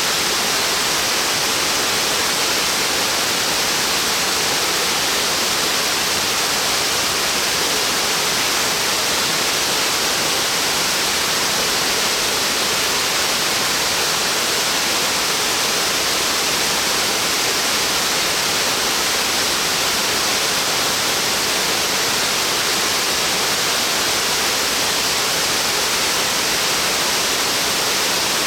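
Uba Falls, a tall waterfall spreading over a wide rock face in many strands, with a steady, unbroken rush of falling water.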